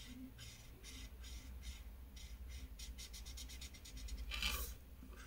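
Felt-tip marker scribbling back and forth on paper while colouring in a shape. The strokes are faint and quick, tighter together around the middle, with one louder rub shortly before the end.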